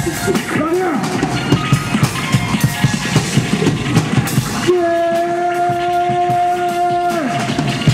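Loud live hip-hop concert music with a steady beat. A melodic line bends up and down in pitch, then a long note is held for about two and a half seconds starting near the middle.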